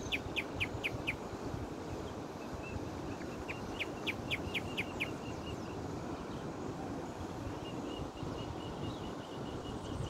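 Songbird singing in a tree. Two quick runs of about six clear whistled notes come at the start and again about four seconds in, and a long, even series of short repeated notes fills the second half, over steady low background noise.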